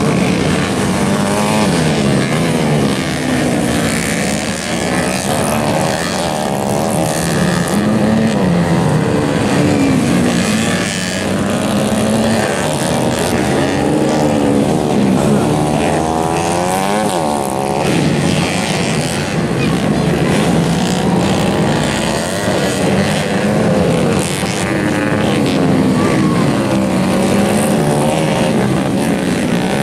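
Minimoto dirt-bike engines revving up and down as the bikes ride a dirt track, several engine notes overlapping and rising and falling in pitch.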